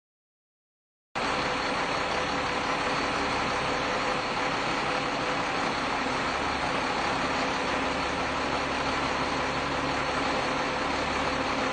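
Steady engine noise of a running vehicle, even and unchanging, starting abruptly about a second in after a stretch of silence.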